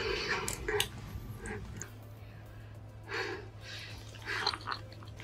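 Soft background music under short, scattered wet noises of food being handled and eaten.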